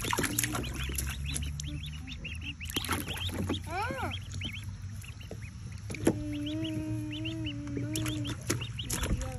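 Ducklings peeping: a steady run of short, high peeps.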